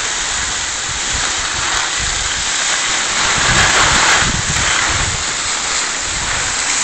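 Skis sliding and scraping over packed, groomed snow while skiing downhill, with wind buffeting the phone's microphone in uneven low gusts. The noise is steady and unbroken.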